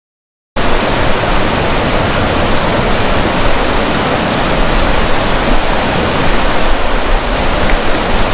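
A river in spate, white water rushing and churning under a stone bridge: a loud, steady roar of water that cuts in suddenly about half a second in.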